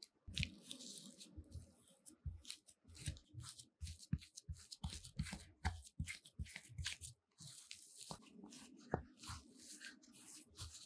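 Wooden spoon mashing steamed potato chunks in a ceramic bowl: a run of irregular scrapes and knocks of wood against the bowl as the soft potato is pressed down.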